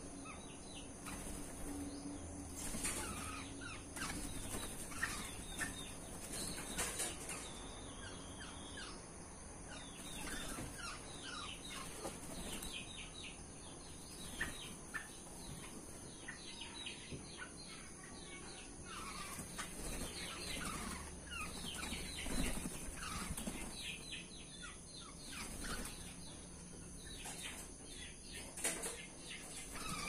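Black-naped orioles flapping their wings as they fly between perches in an aviary, with runs of short falling bird chirps throughout. The keeper takes the birds to be in breeding condition.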